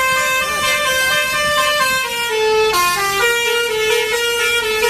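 Indonesian 'telolet' bus horn: a multi-tone horn playing a tune of held notes that step from pitch to pitch without a break.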